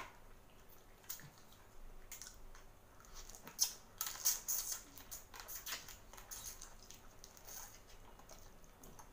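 Close-up eating sounds of boiled seafood: shrimp and crab shells crackling as they are peeled by hand, with wet sucking and chewing at the mouth, heard as irregular clicks and crackles.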